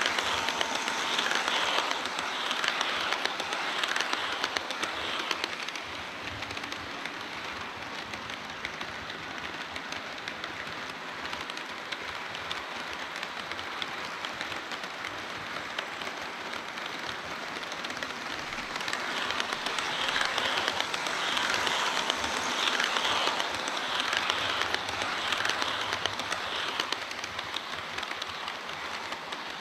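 HO scale model train running on the layout track, a steady rattle of small metal wheels on the rails. It grows louder for a stretch near the start and again about two-thirds of the way through as the train passes close.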